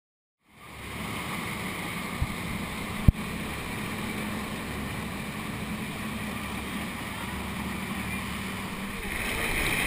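Motorboat running at speed: a steady engine hum with rushing wake water, starting about half a second in. A sharp knock comes about three seconds in.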